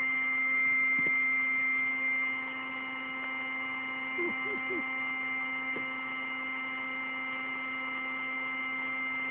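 Electric air pump inflating an airbed, running with a steady hum. It drops a little in level about two seconds in.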